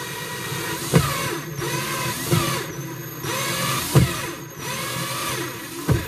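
DeWalt cordless drill driving screws out of a wooden cabinet panel, its motor whining in several short runs that rise and fall in pitch, with a few sharp clicks between them.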